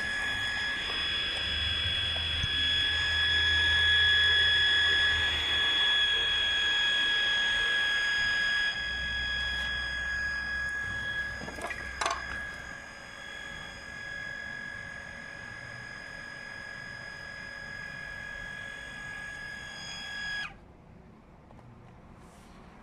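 Small electric water pump with an automatic pump controller running with a steady high whine and a low hum, with a click about halfway through. The whine cuts off suddenly near the end as the pump stops.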